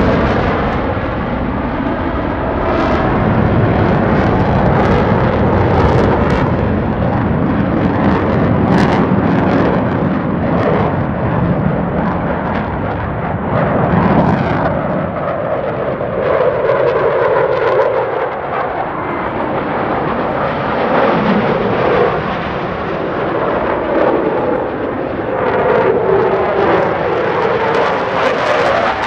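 Jet engine noise from Blue Angels F/A-18 Super Hornets flying past, a continuous rumble and roar that swells and eases as the jets move through the sky.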